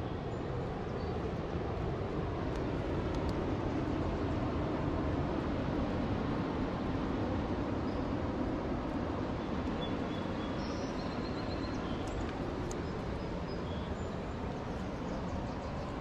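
Ocean surf at low tide: a steady low rush of waves with no breaks.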